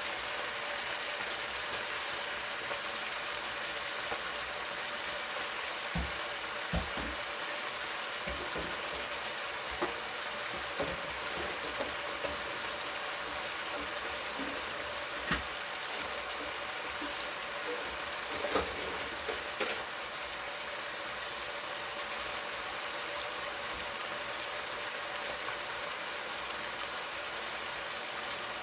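Floured steaks sizzling and bubbling in hot oil and liquid in a skillet, a steady frying hiss. Scattered light clicks and taps between about 6 and 20 seconds in.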